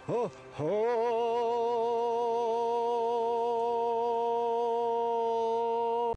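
A man singing: one short note, then a long held note that slides up into pitch and is sustained with a slight vibrato for about five seconds, ending suddenly.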